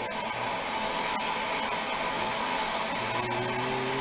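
Handheld gas torch burning with a steady hiss while its flame heats a copper fitting to sweat a soldered joint. A low steady hum joins the hiss about three seconds in.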